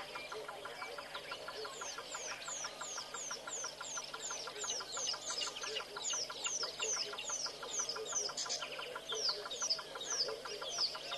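Wild birds calling: a run of short, sharply falling whistles repeated about three times a second, starting about two seconds in, over a steady fast pulsing chorus lower down.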